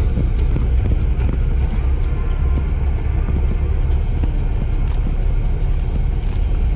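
Wind buffeting an action camera's microphone: a loud, steady low rumble. Faint light clicks come here and there from the spinning reel being handled.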